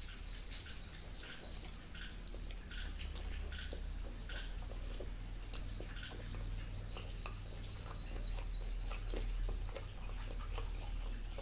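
A person chewing food with wet mouth clicks and smacks, about two a second.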